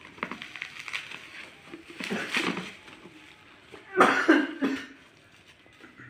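Plastic bubble wrap rustling and crinkling as it is pulled open by hand, with two louder bursts about two and four seconds in.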